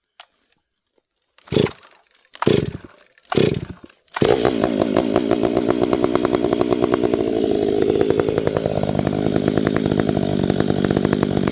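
Cold start of a ported Stihl 500i chainsaw's fuel-injected two-stroke engine, primed with the primer bulb. Three short bursts come about a second apart as it is pulled over; it catches about four seconds in and runs on steadily, warming up.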